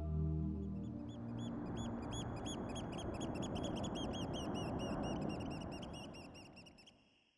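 Nature ambience: small birds chirping, short high chirps that come faster and more crowded, over a soft rushing background. It all fades out near the end.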